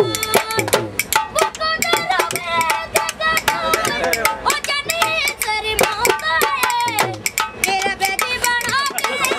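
Children singing a song together and clapping their hands along with it, with the claps coming several times a second throughout.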